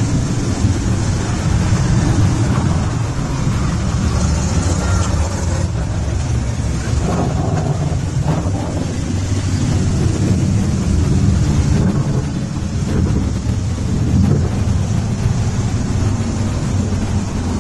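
Many motorcycle engines running together in a mass ride, a continuous low drone with no break.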